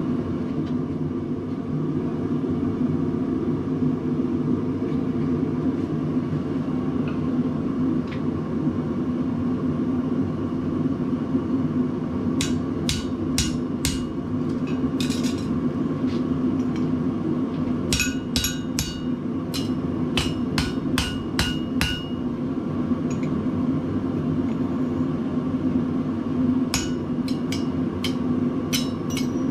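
Hand hammer striking a drift through the hot punched hole on the anvil to enlarge it, in several groups of ringing metal-on-metal blows, the first about twelve seconds in, more after eighteen seconds and again near the end. A steady rush from the running forge underlies it.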